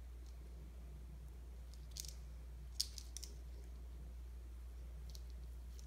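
A few faint, short clicks of nylon fishing line and a steel hook being handled as a knot is wrapped onto the hook shank, the sharpest one about three seconds in, over a steady low electrical hum.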